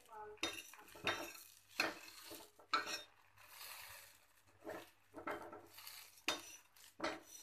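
Steel spatula scraping and knocking against an iron tawa as it presses a sandwich toasting in ghee, about eight short irregular strokes, over a faint sizzle.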